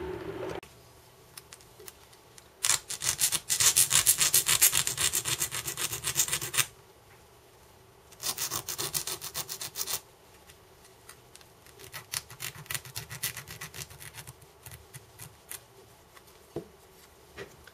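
Needle file rasping across the edge of a small metal part in quick back-and-forth strokes: deburring an edge just cut with a Dremel. The filing comes in two bursts, about four seconds and then about two seconds long, followed by lighter scraping.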